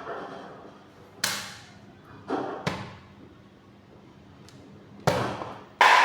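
Blows striking and smashing a ceiling fan: five sharp impacts, irregularly spaced, the last two coming close together near the end.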